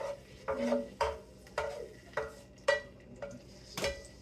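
A black plastic spatula and spoon knocking and scraping against a nonstick electric skillet while stirring: about eight knocks at roughly two a second, each with a short ringing tone.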